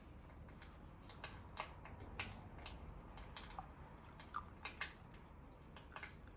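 Faint, irregular light clicks and taps from a metal milk frother pitcher being handled as foamed milk is poured from it into a mug.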